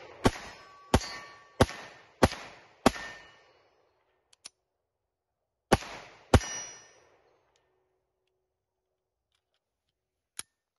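French Model 1935A pistol in 7.65 mm French Long firing: five shots about two-thirds of a second apart, a pause of nearly three seconds, then two more shots in quick succession, each ringing out briefly. A single sharp click comes near the end.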